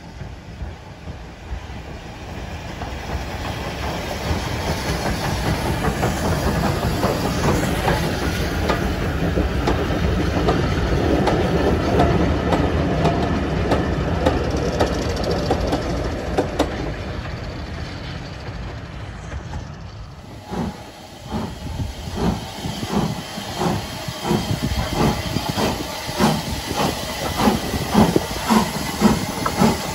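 Train of vintage carriages hauled by a GER Y14 0-6-0 steam locomotive rolling past, wheels clicking over the rail joints, growing louder to a peak and then fading. Then the locomotive working slowly, its exhaust chuffing in even beats about twice a second, with hissing steam.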